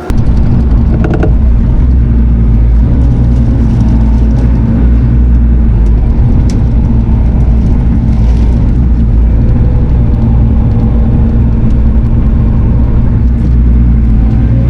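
Diesel engine of a Bobcat compact machine running steadily and loud, heard up close. It starts abruptly and holds an even, unchanging hum.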